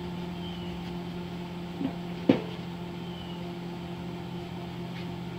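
Lincoln AC-225 arc welder powered up and idling, not yet striking an arc: a steady electrical hum with its cooling fan running. A short knock about two seconds in.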